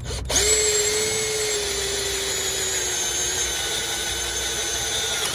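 Cordless drill driving a twist bit through a steel bracket, the lubricated bit under load. The motor whine starts a moment in, holds steady with its pitch sagging slightly as the bit bites, and stops near the end.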